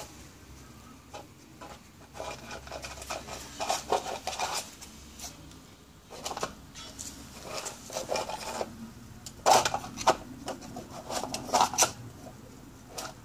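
A Cairn terrier puppy nosing and scrabbling about on stone paving: irregular short scuffs, scrapes and clicks in clusters, loudest about two-thirds of the way through.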